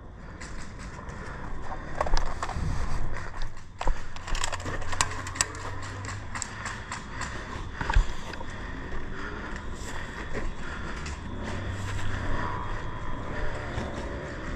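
Irregular sharp clicks and knocks over rustling and a low rumble, the loudest knocks about two, four, five and eight seconds in.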